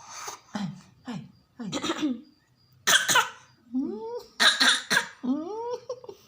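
A young girl gives about half a dozen short, put-on coughs, with a couple of rising-and-falling voiced sounds between them after the middle.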